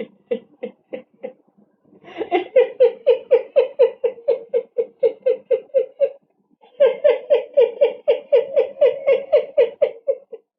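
A person laughing in long, even runs of short 'ha' pulses, about four a second. There are two long bouts with a brief pause between them.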